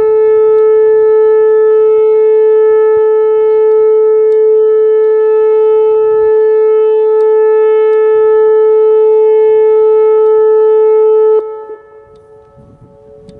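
Whelen 2810 electronic outdoor warning siren sounding its steady alert tone, one loud unwavering pitch. It cuts off sharply about eleven seconds in, leaving a faint lingering tone.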